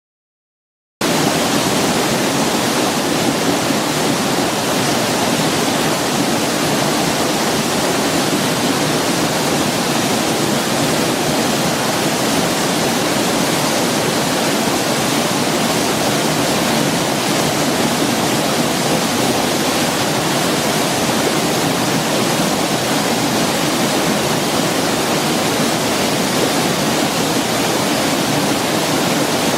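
Waterfall rushing, a steady, even roar of falling water that starts about a second in.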